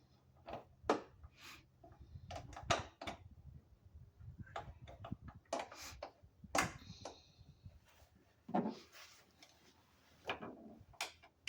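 Irregular knocks, clicks and clatter of tools and hardware being handled while a truck-bed storage box is fitted and its fasteners tightened.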